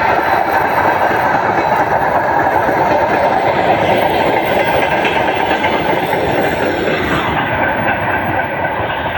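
Railway wagons of a freight train rolling past close by: a steady rumble and rattle of wheels on rail that eases slightly near the end.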